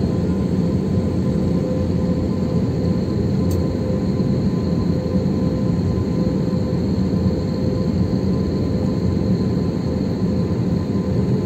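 Jet airliner's engines running at taxi power, heard from inside the passenger cabin: a steady low rumble with a thin, steady whine above it.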